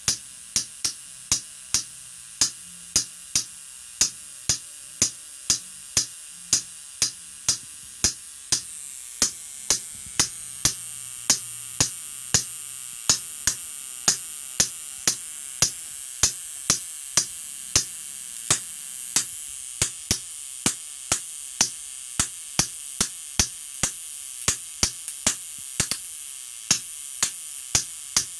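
High-voltage spark discharges from a Cockcroft-Walton multiplier snapping sharply in a steady rhythm, about one and a half snaps a second, over a faint high hiss.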